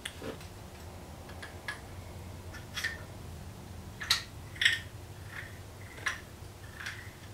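Irregular small clicks and light knocks of an old spinning fishing reel being handled and worked, its new 3D-printed gear just fitted.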